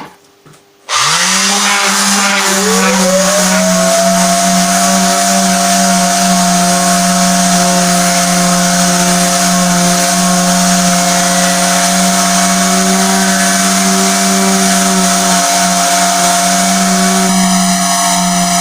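Electric sander switched on about a second in, its motor whining up to speed and then running steadily with a hiss, sanding a wooden guitar body through the grits from 80 toward 120.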